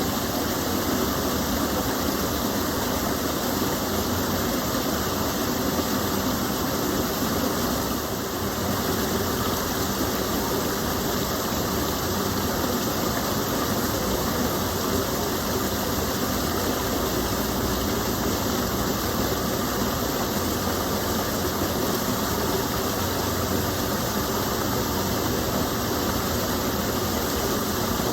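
Steady rush of water falling and splashing from a small waterfall in a gentle stream.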